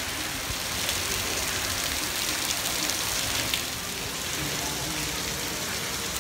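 Steady rain falling on wet paving, an even hiss.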